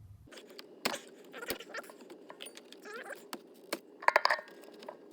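Scattered light clicks and taps of plastic dash parts being handled as the instrument cluster's outer display casing is unclipped and lifted off, with a quick run of louder clicks about four seconds in.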